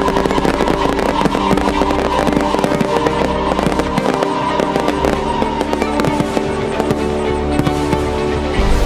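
A fireworks display: many sharp cracks and pops from bursting aerial shells and ground fountains, with steady music playing throughout.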